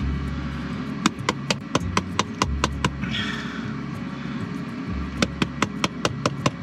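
Plastic egg-poacher cup being tapped repeatedly to free a stuck poached egg: a quick run of about ten sharp taps, a pause, then about eight more near the end.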